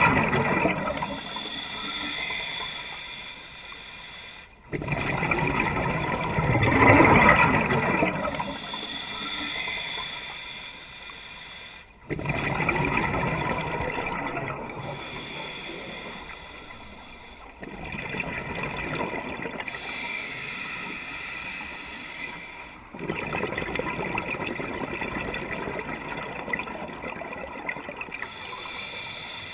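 Water bubbling and gurgling, in several short stretches that each start suddenly and fade away, with abrupt cuts between them.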